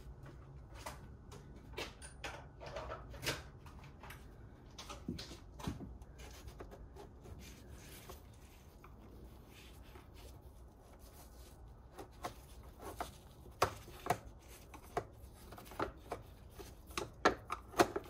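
Scattered light clicks and taps of plastic engine-cover parts being handled and worked loose by gloved hands, with a quicker run of sharper clicks over the last few seconds.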